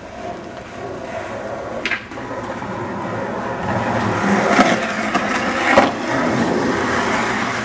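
Skateboard wheels rolling on pavement, the rumble growing louder, with a few sharp clacks of the board about two, four and a half and six seconds in.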